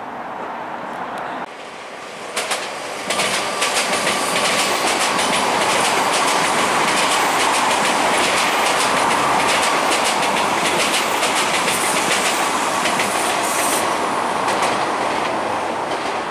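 Meitetsu electric train passing close by, a rapid limited express. Its wheels clack over the rail joints in a quick, dense run of clicks, with a faint steady whine underneath. The train is quieter at first and gets loud about three seconds in.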